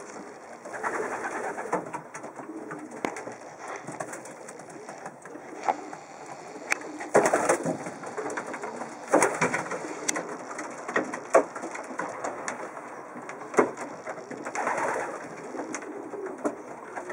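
Racing pigeons cooing, with scattered sharp clicks and a few louder rustling bursts mixed in.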